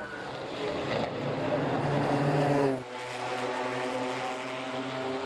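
Group C sports-prototype race car engine at full song, growing louder to a peak, then dropping suddenly about three seconds in to a steady, lower engine note.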